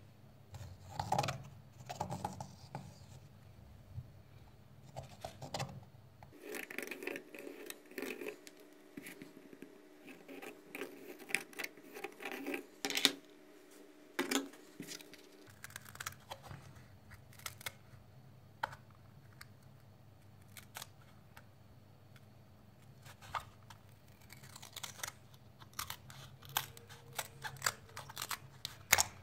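Small handling taps and scratches from a compass drawing circles on a panel of wooden ice cream sticks, then, near the end, scissors snipping through the thin wooden sticks in a quick run of sharp cuts.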